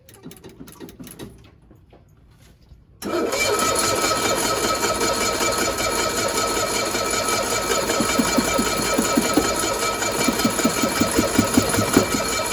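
1965 Cushman Truckster engine running noisily at a steady speed, with a rapid low pulsing. Light clicks come first; the running sound comes in suddenly about three seconds in.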